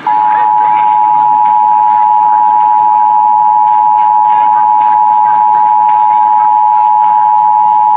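Emergency Alert System two-tone attention signal (853 and 960 Hz sounded together), one long, steady, loud tone starting almost at once. It is the alert tone that comes before the spoken message of an EAS Required Monthly Test, heard as broadcast over AM radio.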